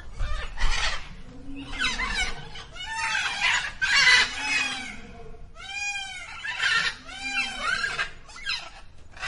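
Green peafowl calling: a series of harsh calls about a second apart, several with a rising-then-falling tone.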